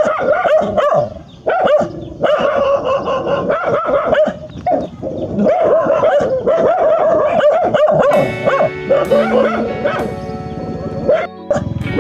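A dog barking repeatedly, over background music that becomes more prominent in the second half.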